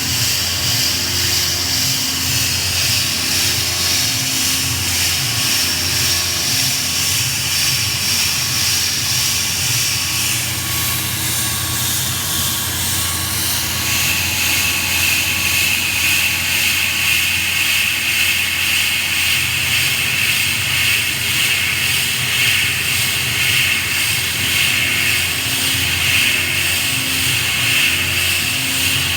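Tormach PCNC1100 CNC mill cutting a hole with a quarter-inch three-flute carbide endmill: a steady, loud machining whine over a pulsing low hum. The whine drops to a lower pitch partway through.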